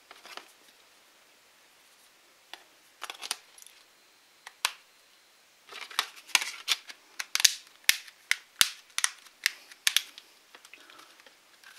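Plastic back cover of a Karbonn A19 smartphone being snapped on by hand: a quick run of sharp plastic clicks as its clips seat around the edges, after a few scattered clicks as the battery is fitted.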